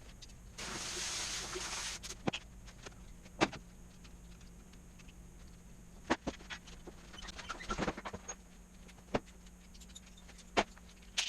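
Scattered sharp clicks and light knocks of hand work on a 4L80E transmission, with a brief hiss a little after the start: the wiring harness being unclipped.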